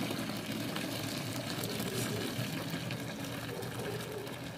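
Water pouring in a steady stream from a glass pitcher into a plastic tub of dye liquid, splashing into it and gradually getting quieter.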